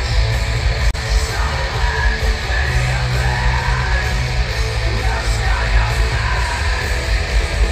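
Heavy metal band playing live, with loud distorted guitars, heavy drums and yelled vocals.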